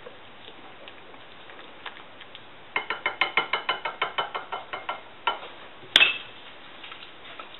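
Whisk beating a sauce in a ceramic bowl: a quick run of clinks against the bowl, about eight a second for two seconds, then a knock and one louder click.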